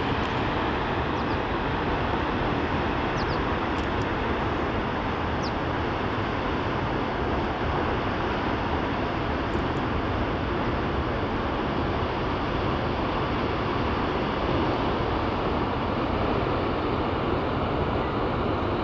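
Steady roar of Palouse Falls, a waterfall plunging about 198 feet over basalt cliffs: a constant, even rush of falling water.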